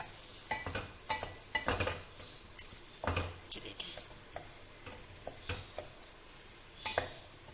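Wooden spoon stirring mashed eggplant and potatoes in a metal pot on the stove, with irregular scrapes and knocks of the spoon against the pot over a faint sizzle.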